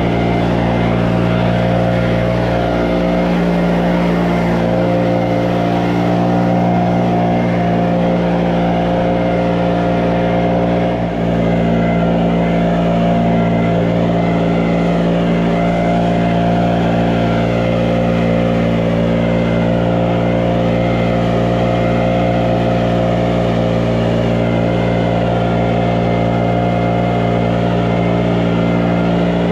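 An engine running steadily at an even speed, with one brief dip about eleven seconds in.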